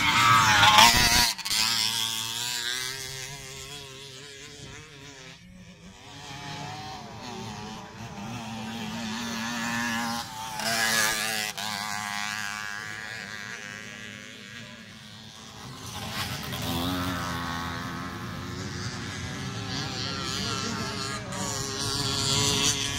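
Motocross bikes running around a dirt track: engine notes rise and fall as they rev, shift and pass. They are loudest in the first second and swell again a few times, last near the end as a bike comes closer.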